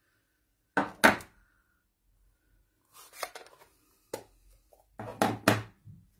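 Hard knocks and handling of card-stamping tools on a desk: two sharp knocks about a second in, a short rustle of paper around three seconds, a tick, then a quick cluster of knocks near the end.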